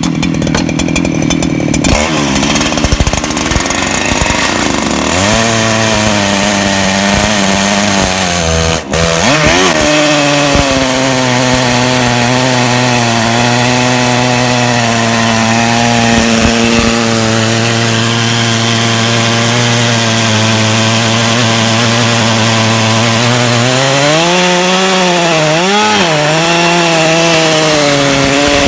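Chainsaw on a portable log-mill jig running at full throttle as it rips a log lengthwise into planks, the engine note steady under load. It dips for a moment about nine seconds in, and near the end the pitch sags and wavers as the saw bogs in the cut.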